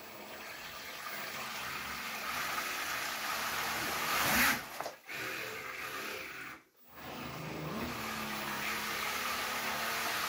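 Salvaged Milwaukee drill motor, run straight off its armature without the gearbox, spinning a 3D-printed jet pump impeller under water: a motor whir over churning, splashing water. It cuts out twice, about five and seven seconds in, then spins back up with a rising whine and holds a steady pitch as the primed pump pushes out a jet of water.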